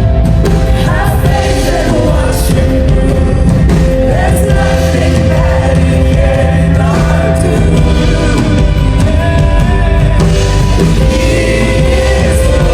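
Background music: a song with a singing voice over a full band, loud and steady throughout.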